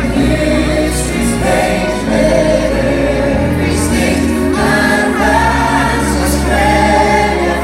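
Loud music with a choir singing over a steady bass line.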